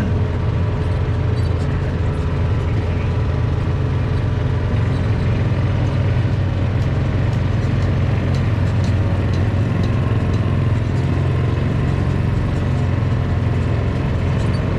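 Engine of a slow-moving vehicle driving across grass, running steadily with a constant low drone and a few faint light clicks.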